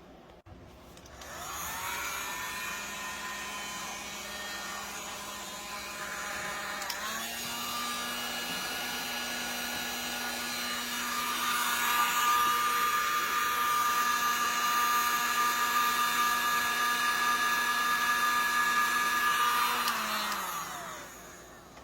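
Cordless-drill motors and gearboxes driving a large Wall-E robot, whining as they spin up about a second in. They run steadily, step up in speed partway through, get louder, then spin down near the end.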